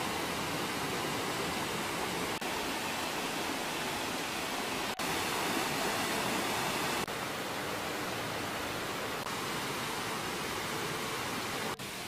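Mountain stream rushing over rocks and small cascades: a steady rush of water that jumps in loudness at a few sudden cuts, louder from about five seconds in and quieter again after about seven.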